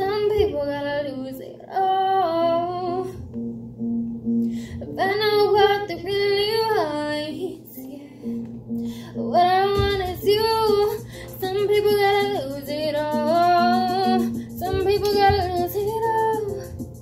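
A young woman singing a pop song over a backing track with guitar, in long phrases with short breaks.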